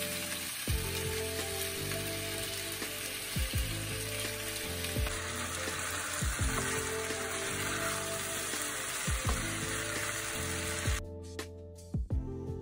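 Sliced potatoes frying in oil in a coated frying pan, a steady sizzle, with a wooden spatula knocking against the pan now and then as they are stirred. The sizzle cuts off suddenly near the end.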